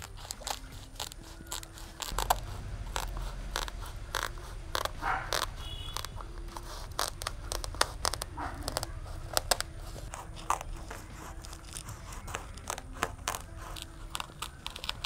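A thick mat of sprouted foxtail millet, grown on a sack, being cut through together with the sack: irregular crunching snips and scrapes.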